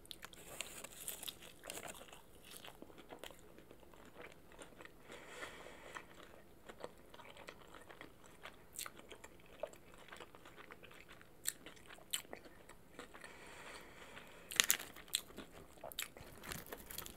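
A person biting into and chewing crispy boneless fried chicken wings and fries close to the microphone. Irregular crunchy bites come between stretches of chewing, with the loudest bites near the end.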